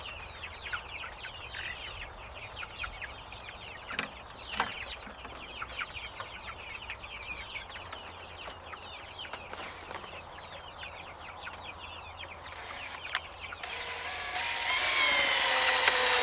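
Cordless drill driving a screw into the wooden frame near the end, its motor whine rising in pitch for about two seconds before stopping. Before that, a steady chorus of crickets with short chirps and a couple of knocks.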